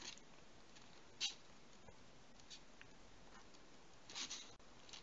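Faint, short scratches of a kitten's paws on the cardboard floor of a box, a handful of them a second or so apart, the clearest about a second in.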